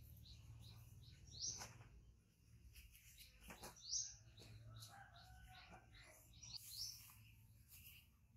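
Near silence broken by three faint, short, high chirps that rise in pitch, a couple of seconds apart, over a low steady hum.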